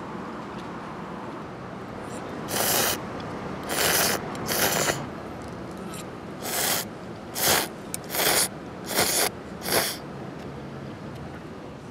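Tantanmen noodles slurped from chopsticks and a soup spoon: about eight short, loud slurps, the first three in quick succession, then five more after a brief pause.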